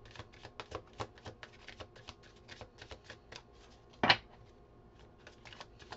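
A quick, uneven series of light clicks and taps, several a second, with one sharper, louder click about four seconds in.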